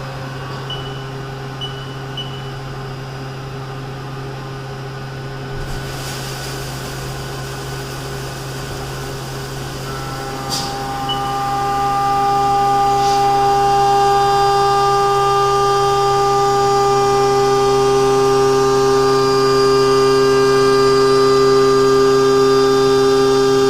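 CNC milling machine running with a steady whine; about ten seconds in, higher tones join and it grows louder.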